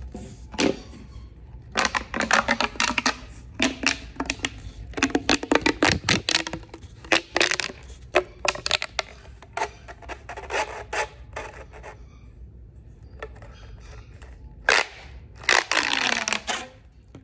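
Fidget toys handled close to the microphone: an irregular run of sharp clicks, taps and scrapes, with a longer, denser rubbing noise near the end.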